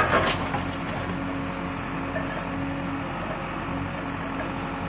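JCB 3DX backhoe loader's diesel engine running steadily, with a couple of short knocks right at the start.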